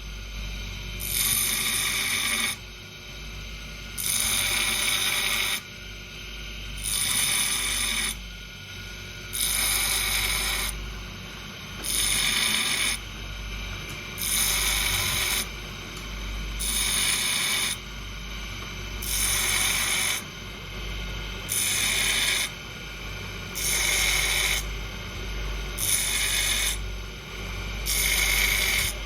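A grinder grinding steel in short passes: roughly a dozen loud, high, ringing grinds, each just over a second long and about two seconds apart, as the wheel cuts saw-pattern teeth into a knife blade. Between the passes the grinder runs on more quietly.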